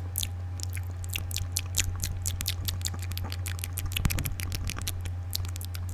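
Rapid, close-miked wet mouth sounds: a quick run of tongue clicks and lip smacks, several a second, over a steady low electrical hum.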